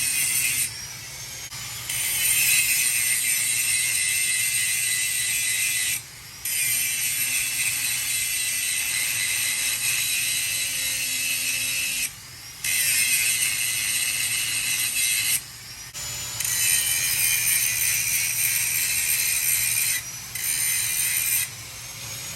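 Power grinder grinding down the chewed-up steel head of a splitting maul: a steady, high grinding hiss in long passes, dropping several times as the wheel comes off the metal and the motor's whine rises.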